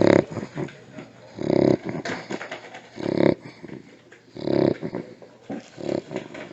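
Micro exotic bully dog making loud, harsh, rasping breathing noises through its throat and nose, a big one about every one and a half seconds with smaller ones between. The vet ties its noisy breathing and snoring to its short muzzle.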